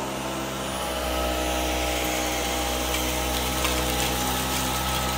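Dyson V11 Outsize cordless stick vacuum running steadily in auto mode with its motorized brush head on carpet, picking up crushed saltine crackers: a steady motor whine with several held tones over a rushing of air.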